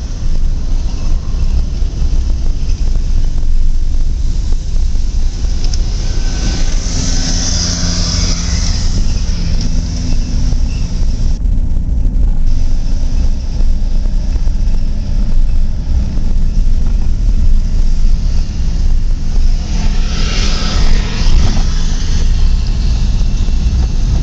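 Diesel engines of road-construction machinery running with a heavy, steady low rumble. Twice, about a quarter of the way in and again near the end, a machine comes close: its engine note and a high hiss swell up, then fade.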